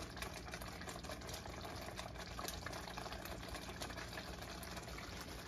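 Tomato sauce simmering in a frying pan, a faint steady bubbling with many small pops.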